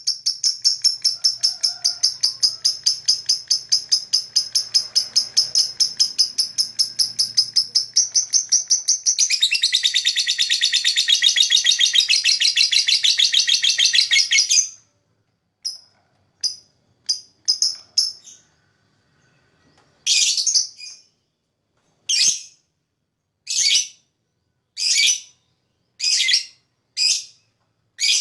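A lovebird chirping. It starts with a fast, even trill of high chirps, about five or six a second, which grows fuller and louder about nine seconds in and then breaks off. After a few scattered short chirps come single sharp calls, about one every second and a half.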